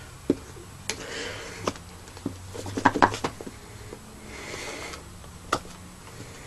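Scattered clicks, taps and soft rustling of a cardboard product box with a thick plastic layer being handled and worked open, with a cluster of knocks about three seconds in.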